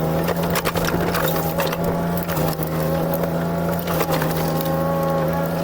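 JCB 8026 mini excavator's diesel engine running steadily under work, with frequent sharp clicks and knocks from the machine working the ground.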